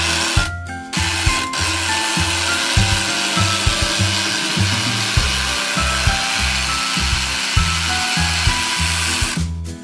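Toy kitchen blender switched on at its power button, giving a steady whirring blending noise; it cuts out briefly about half a second in, starts again a second in and runs until just before the end.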